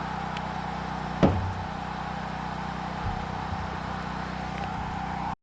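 A steady low machine hum with one sharp knock about a second in and a fainter knock near three seconds.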